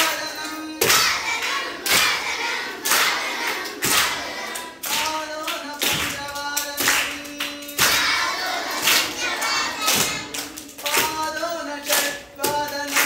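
A group of schoolchildren singing a Sanskrit song, clapping together about once a second to keep the beat.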